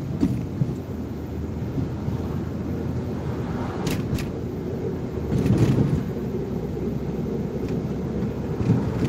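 Road and engine noise inside a moving car's cabin: a steady low rumble, with two short clicks about four seconds in and a brief swell in the rumble soon after.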